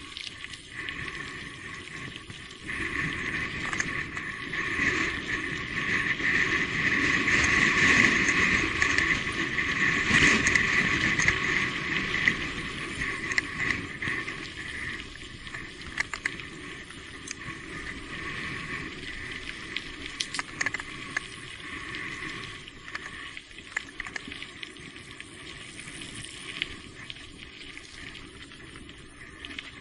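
Riding noise of an electric mountain bike on a wet, rainy trail: a continuous rushing sound with scattered clicks and knocks. It swells a few seconds in, is loudest just before the middle, then eases off.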